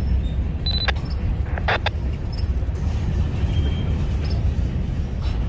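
Freight train of loaded covered hopper cars rolling past: a steady low rumble of steel wheels on the rails, with a few sharp clicks and brief high squeaks in the first two seconds.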